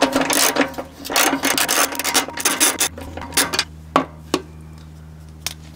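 Hand ratchet wrench clicking rapidly on a bolt for about three seconds, then two single clicks. A low steady hum runs underneath in the second half.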